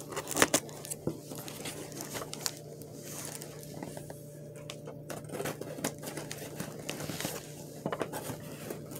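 Cardboard shipping box being opened by hand, its packing material rustled and crinkled, with scattered light taps and knocks.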